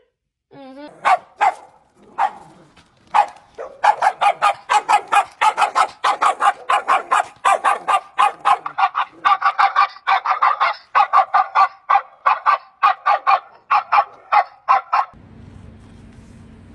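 A fowl honking over and over, a few spaced calls at first, then a rapid run of about three to four honks a second that stops abruptly near the end. A low steady hum follows.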